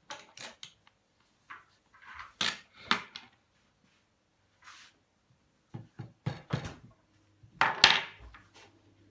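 Small objects being handled: scattered knocks, clicks and clatter, with the loudest clatter about eight seconds in.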